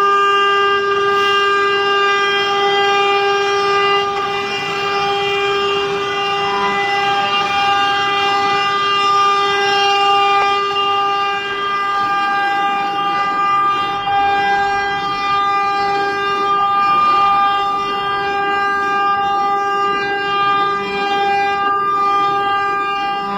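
CNC router spindle running at speed: a steady high-pitched whine held throughout, over a rough hiss.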